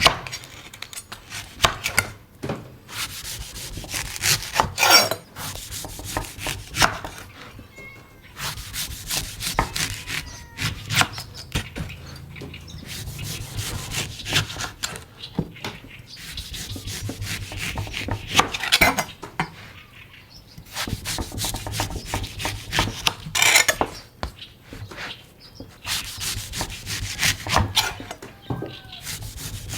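A sharp knife chopping and scraping a coconut's fibrous husk and shell in quick, irregular strokes, with several louder strikes.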